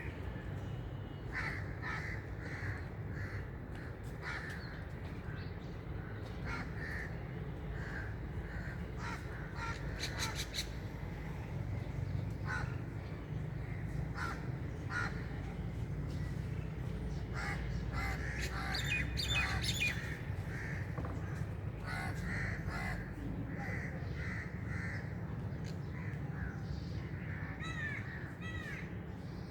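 Crows cawing in repeated series of short calls, with smaller birds chirping briefly in between, over a steady low rumble.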